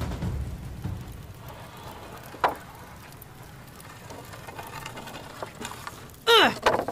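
A low rumble dies away at the start, leaving a faint background with a single sharp click. Near the end a person's voice gives two short cries, each falling in pitch.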